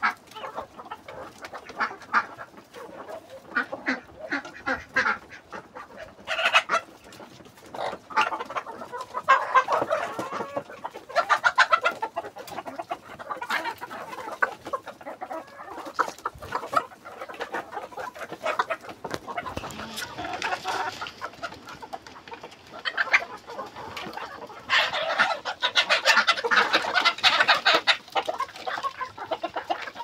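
A mixed flock of chickens, Fayoumi hens among them, clucking and squawking at a feed trough, many short calls overlapping. The clucking grows busier and louder about nine seconds in and again near the end.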